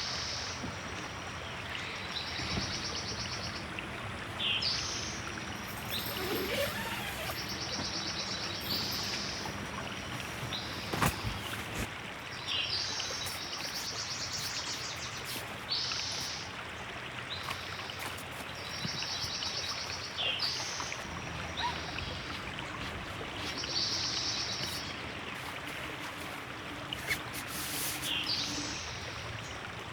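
River water running steadily, with a songbird singing short, high trilled phrases over and over.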